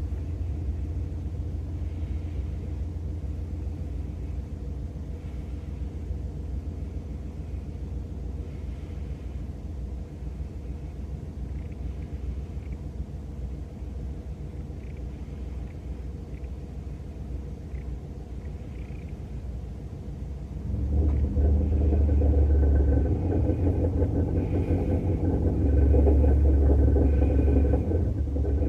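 A 2017 Toyota Pixis Mega G Turbo's 660 cc turbocharged three-cylinder car running as a steady low rumble. It grows louder and heavier about 21 seconds in. The owner reports an abnormal noise from the car.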